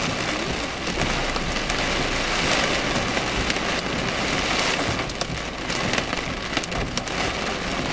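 Heavy thunderstorm rain pelting a car's roof and windscreen in a steady dense hiss, with sharper individual drop hits standing out from about five seconds in.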